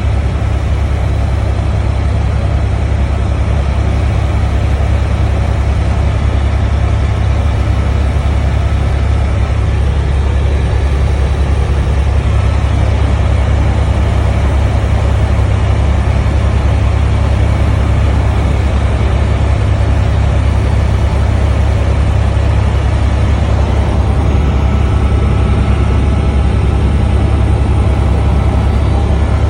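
Helicopter running: a loud, steady, low drone that holds unchanged throughout, with a few faint steady higher tones over it.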